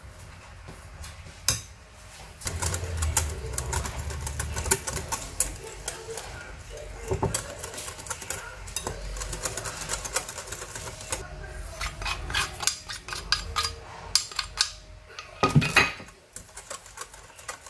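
Wire whisk and spatula beating a thin chocolate cake batter in a glass bowl: fast, busy clicking and scraping of the utensil against the glass, with a louder knock near the end.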